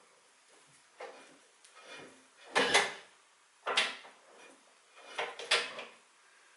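Speed-change levers of a 1940 Sheldon lathe's U-Type underdrive being shifted by hand while the lathe is stopped, giving a series of about five sharp metal clunks, the loudest a little under three seconds in.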